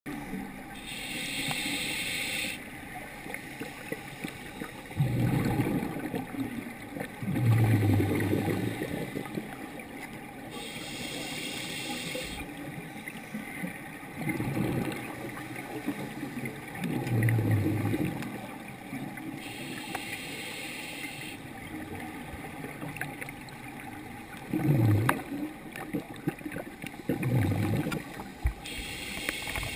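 Scuba diver breathing through a regulator underwater. A hissing inhalation comes about every nine seconds, four times in all, and each is followed a few seconds later by two bursts of exhaled bubbles.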